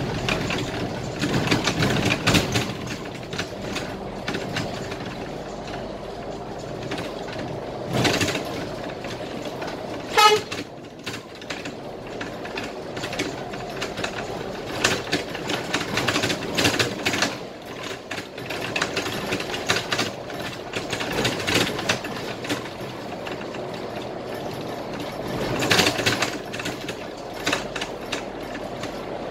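Scania K320IA bus running at speed, heard from the driver's cab: steady engine and road noise with frequent interior rattles. A short horn toot sounds about ten seconds in.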